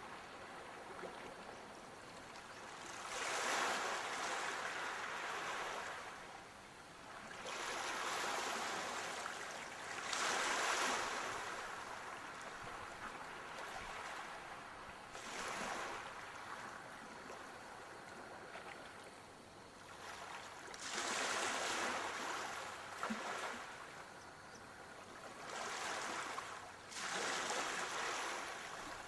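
Sea waves breaking and washing on a shore, the surf swelling and falling away every several seconds.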